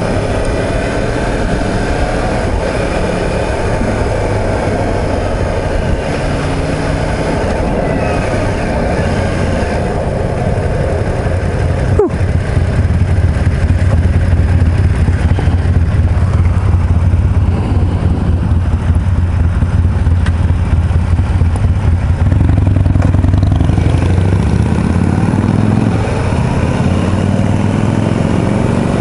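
Sport-bike engine heard from the rider's seat: it slows with falling pitch, then settles for about ten seconds on a deep, steady low note while stopped. Near the end it pulls away with rising pitch and a shift up between two rises. There is a single sharp click about twelve seconds in.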